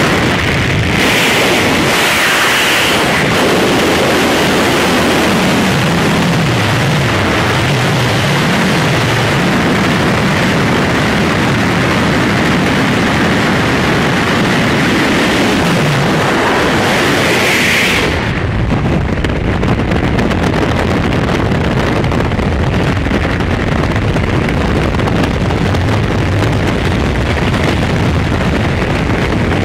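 Loud wind and aircraft noise at the open door of a skydiving plane. About 18 s in it gives way to a steady roar of freefall wind buffeting the camera microphone.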